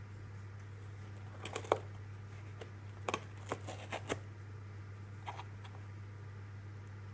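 Short scratchy, rustling bursts in three bunches, the sharpest about one and a half seconds in, over a steady low hum.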